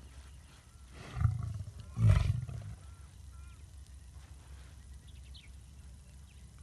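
A lion sneezing twice, about a second apart: two short, explosive blasts of breath with a deep low rumble, the second louder.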